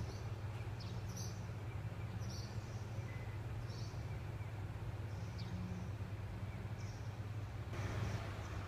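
Birds chirping in short, scattered calls over a steady low hum.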